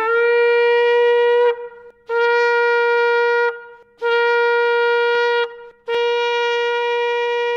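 Shofar (ram's horn) sounded in four long blasts, each held at one steady pitch for about a second and a half, with short breaks between. The first blast scoops up into its note.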